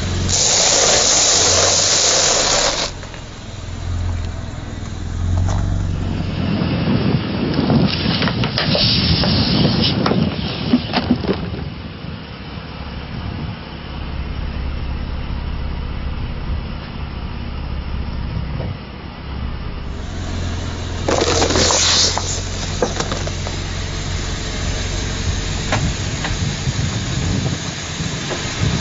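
Car tyre rolling over and crushing blocks of dry instant noodles, with a run of crackling crunches, over the low steady sound of the car's engine. There is a loud hiss near the start and a short loud hiss again about two-thirds of the way through.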